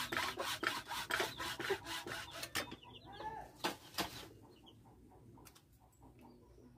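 Hacksaw cutting through a PVC pipe held in a bench vise, in quick, even back-and-forth strokes that stop about two and a half seconds in. A chicken clucks just after, then come two sharp knocks.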